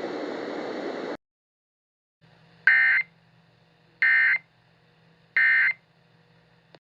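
Emergency Alert System end-of-message (EOM) SAME data bursts: three short, identical buzzy digital chirps about 1.3 seconds apart, signalling the end of the alert. A steady hiss before them cuts off about a second in.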